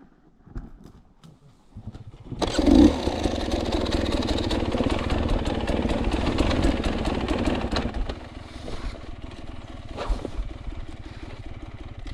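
Enduro motorcycle engine starting about two seconds in and running loud for several seconds, then settling to a lower, steady idle.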